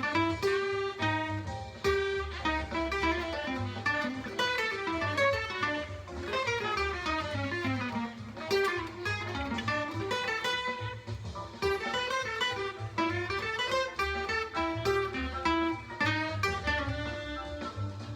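1938 Epiphone Deluxe acoustic archtop guitar playing a fast single-note jazz solo line, with quick runs of notes rising and falling over a steady low accompaniment.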